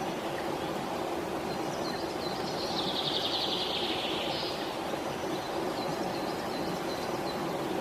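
Pied kingfisher calling: a few short high chirps, then a rapid, rattling trill for about two seconds from around three seconds in, with faint chirps after. A steady background rumble runs under it.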